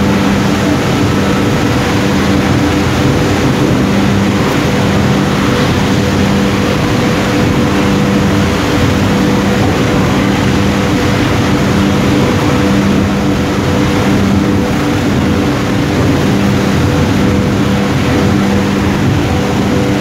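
Steady machinery drone with a constant low hum over a loud hiss, unbroken throughout.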